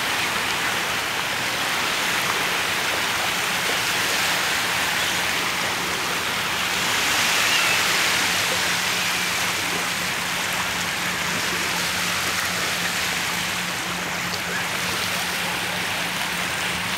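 Small waves washing over a shallow beach: a steady rush of water that swells briefly around the middle.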